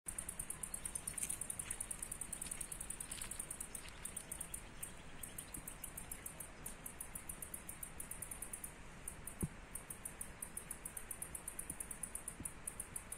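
Insects calling outdoors in a rapid, high-pitched pulsing chorus that never lets up, with one faint click near the end.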